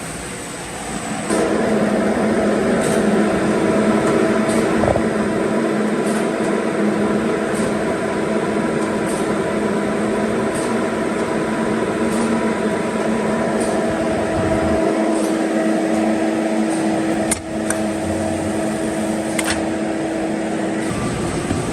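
DRC-75 cereal bar cutting machine running: a steady mechanical hum with held tones that set in about a second in, and a faint regular click about every second and a half. One sharper knock comes near the end.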